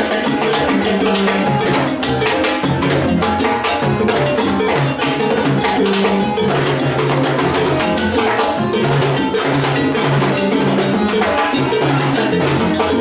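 Live salsa band playing: electric bass, congas and timbales keeping a dense, steady rhythm.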